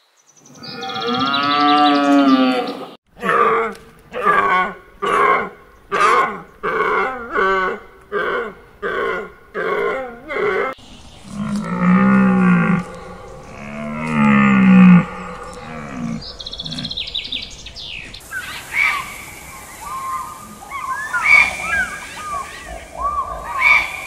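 Deer calling: one long call, then a run of a dozen or so short calls at about two a second, then a few deeper calls. High, quieter chirping calls follow in the last third.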